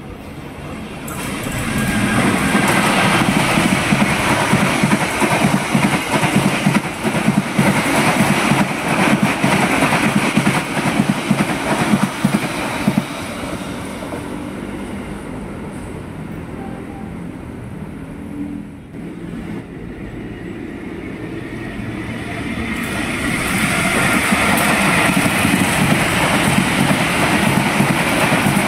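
Indonesian long-distance passenger trains running through a station at speed, one after the other: the rumble of the coaches and their wheels clattering over the rails swell as the first train goes by and then fade. A break follows about two-thirds through, and a second train rises to the same loud clatter as its coaches pass close by.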